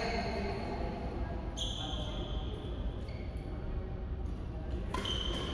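Badminton rallies in a large hall: court shoes squeak on the synthetic court mats, once about one and a half seconds in and again near the end, and a racket hits a shuttlecock sharply near the end, over a steady low room rumble.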